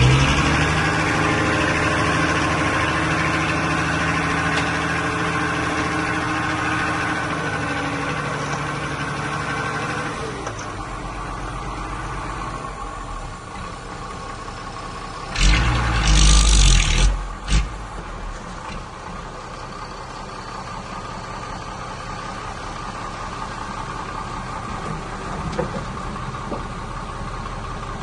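Heavy diesel engine of earthmoving machinery running loudly, then dropping away after about ten seconds to a quieter steady run. About halfway through, a loud rushing, rumbling burst lasting around two seconds.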